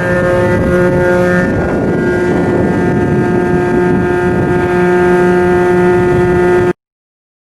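Coastal cargo ship's machinery running steadily under way: a loud drone with several steady whining tones over a rumble. It cuts off suddenly near the end.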